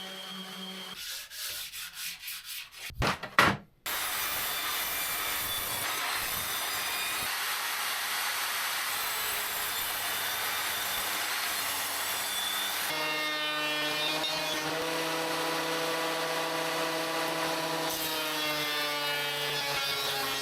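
A power tool cutting wood, running steadily under load, with a pitched hum that comes in about two-thirds of the way through. A few sharp knocks come just before the cut starts.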